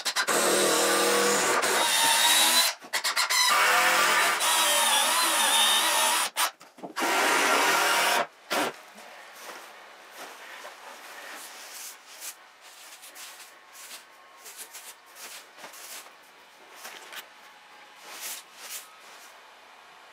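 Handheld power drill boring into a wooden 2x4, its motor running in several bursts with short stops over about eight seconds. After that, faint scattered rustling and scratching in wood-shaving bedding.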